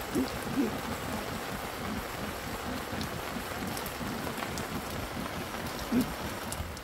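Water poured from a plastic bottle into an aluminium camping pot of rice, with a steady patter of rain behind it.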